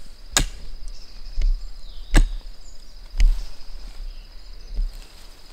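Hand hoe chopping into garden soil: about five strokes, three of them sharp and loud, roughly a second apart. A steady high insect buzz runs underneath.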